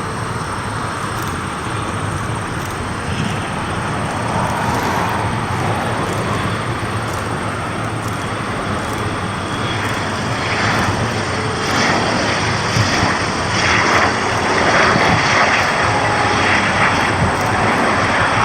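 Engine noise of CT-114 Tutor jets of the Snowbirds passing low on their landing approach, a steady rushing sound that grows louder from about ten seconds in.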